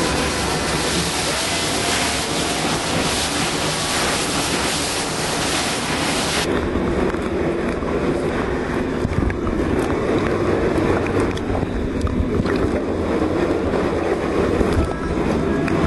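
Loud, steady rush of running water in a cave passage. About six seconds in it turns suddenly duller, the hiss dropping away and leaving a lower rumble.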